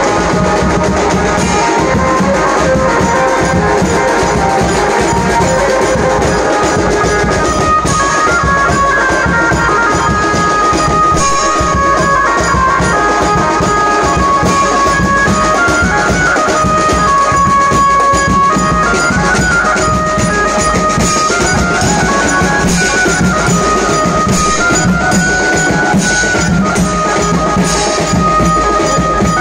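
Live procession band playing loud, catchy festival music: a drum kit and drums keep a steady beat under a high melody line.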